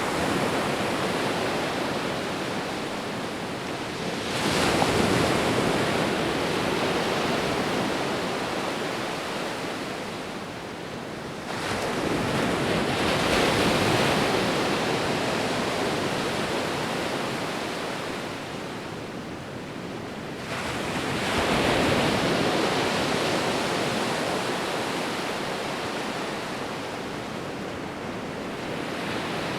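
Sea waves rolling in: a steady wash of surf with three waves breaking, about eight seconds apart, each swelling quickly and then fading slowly.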